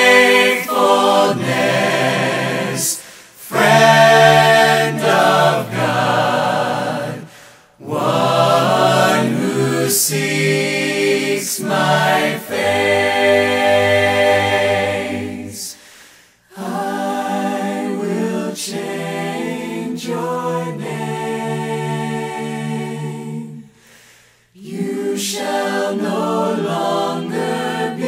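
Unaccompanied voices singing a slow worship song in long held chords. The singing breaks off briefly about every eight seconds between phrases.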